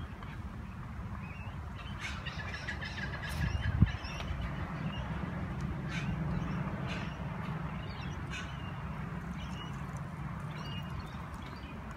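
Outdoor birds calling and chirping over a steady low rumble, with faint light taps of a tennis ball bouncing on a racquet's frame and one sharper thump about four seconds in.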